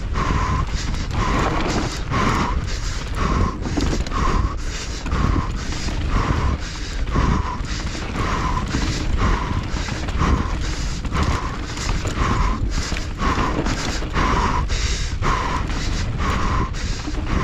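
Mountain bike racing down a rough, loose dirt trail: wind and trail rumble on the camera mic with frequent rattles and knocks, over the rider's hard, rhythmic panting at about two breaths a second.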